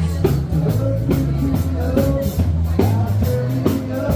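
Rock music with a steady drum beat and bass, with a singing voice over it.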